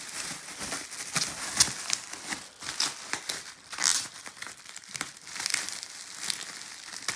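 Plastic bubble wrap crinkling and crackling in irregular bursts as hands grip and pull it off a packaged box.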